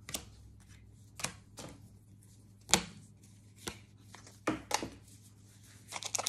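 Pokémon trading cards being handled and flipped through: a string of separate sharp flicks and snaps as cards are slid off the stack, the loudest about halfway through, then a quick flurry of card handling at the very end.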